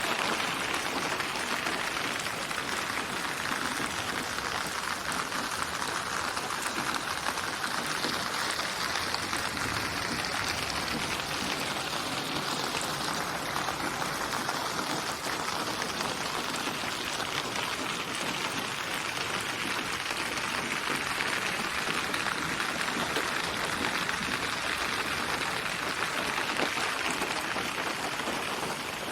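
Steady rainfall, an even hiss of raindrops pattering on a surface.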